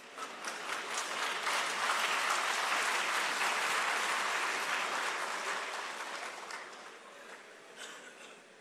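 Audience applauding: the clapping swells over the first couple of seconds, holds, then dies away over the last few seconds.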